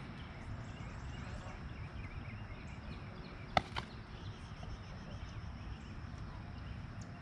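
Open-air ballfield background with a steady low rumble, and a single sharp pop about three and a half seconds in.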